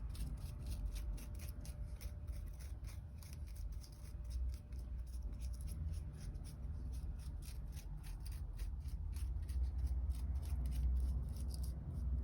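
Paintbrush scraping and dabbing over the scales of a pine cone: quick, repeated scratchy strokes over a low rumble.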